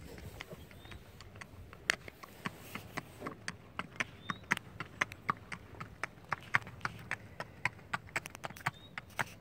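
Hooves of a sorrel Welsh/Quarter Horse mare clip-clopping on a paved path at a slow walk. The sharp hoof strikes come in a steady walking rhythm and grow louder over the first few seconds.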